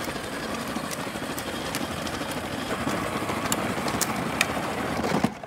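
Power Wheels Dune Racer ride-on toy car driving on asphalt: its hard plastic wheels rolling and its electric drive motors and gearboxes running make a steady rough noise with a few small clicks. The noise cuts off suddenly shortly before the end.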